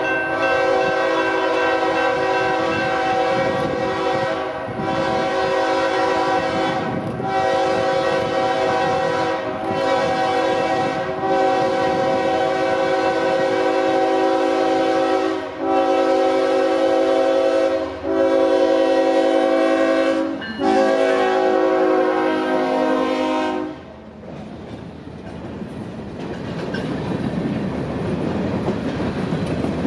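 Diesel freight locomotive's air horn sounding a long series of blasts with brief breaks, stopping about 24 seconds in. Then the rumble and clatter of freight cars rolling past, building toward the end.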